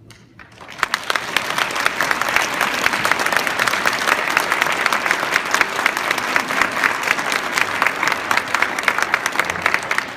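Audience applauding, starting about a second in and holding steady, with dense clapping.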